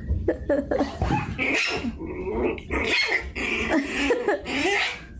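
A dog vocalizing in a continuous run of short whining and grumbling calls that rise and fall in pitch.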